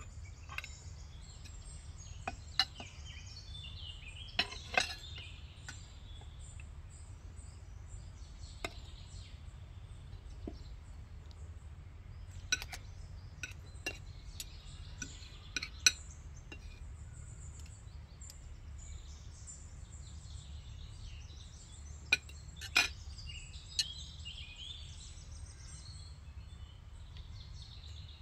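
Metal spoons and forks clinking against plates and serving platters in scattered, irregular taps, with birds chirping over a low steady hum.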